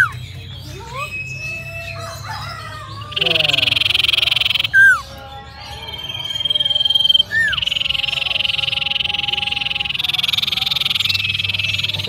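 Common iora (cipoh) singing: a dense, rapid rattling trill about three seconds in, then a long held whistle and a short downslurred note, then a longer trill that runs on for the last four seconds or so.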